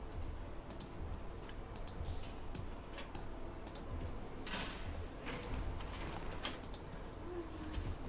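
Scattered clicks of a computer mouse and keyboard, singly or a few in quick succession about once a second, over a faint low hum.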